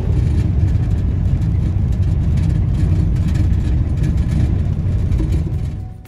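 Mack truck driving on the highway: a steady low engine and road rumble that fades out just before the end.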